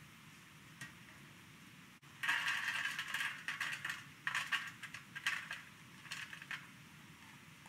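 Pecan nuts tipped from a small glass bowl, clattering into a stainless-steel baking tray. The clatter starts about two seconds in as one dense spill lasting about a second, followed by several shorter spills.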